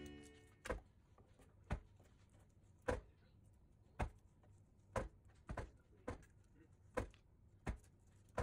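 A knife cutting along a raw broomtail wrasse fillet on a wooden cutting board: about ten faint, sharp clicks, roughly one a second.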